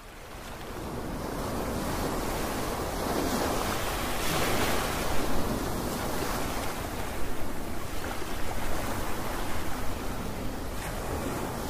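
Small waves washing up and back on a sandy beach, a steady surf wash that swells and eases every few seconds. It fades in over the first couple of seconds.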